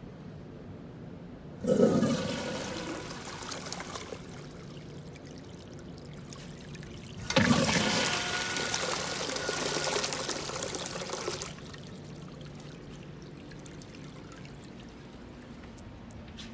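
Wall-hung urinal flushing twice through its chrome flush valve, a rush of water sheeting down the bowl. Each flush starts suddenly: the first near the start lasts about two seconds, the second, about halfway through, runs about four seconds.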